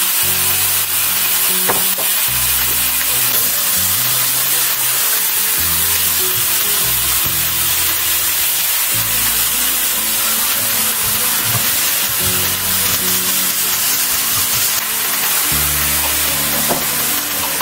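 Ground chicken stir-fry sizzling steadily in a hot pan for Thai basil chicken, under background music.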